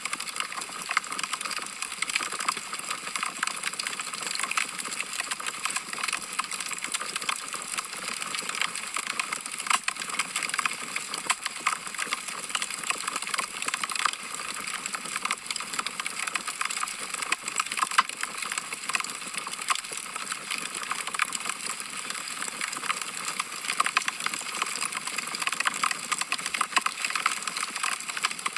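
Wood fire crackling: a constant stream of small, irregular pops and snaps over a soft hiss.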